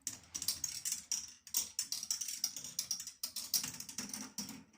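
A ball rolling and clattering down a K'nex plastic ball-machine track: a dense run of rapid clicks and rattles that cuts off just before the end.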